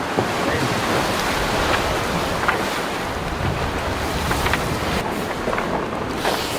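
Rushing sea water and wind buffeting the microphone aboard a racing sailboat under way, with a few short ticks or splashes through the steady noise.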